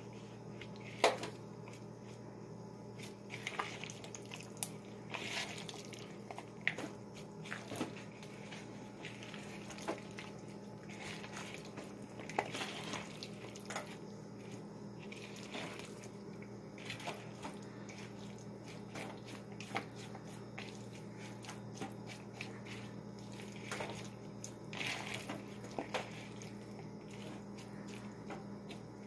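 Irregular wet squishing and smacking of a hand mixing seasoned raw chicken pieces and chopped vegetables in a bowl, over a steady low hum.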